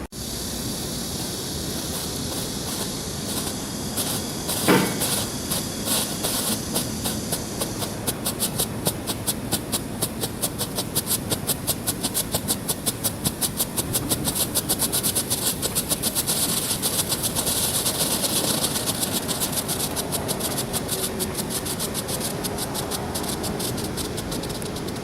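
Firework burning with a steady high hiss and a loud crack about five seconds in, then a long rapid run of evenly spaced sharp crackling pops, several a second, with the hiss swelling again midway through.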